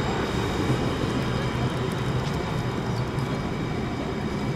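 Alstom Citadis 403 low-floor tram moving slowly along street track, giving a steady running hum with several faint high whining tones over street noise.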